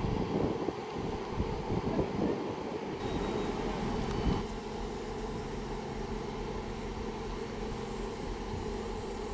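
Class 158 diesel multiple unit standing at a platform with its diesel engines idling, a steady drone. For the first four seconds or so wind buffets the microphone; after that the engine hum holds steady.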